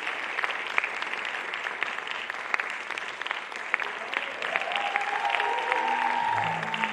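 Audience applauding: a dense, steady patter of many hands, with some sharp single claps standing out.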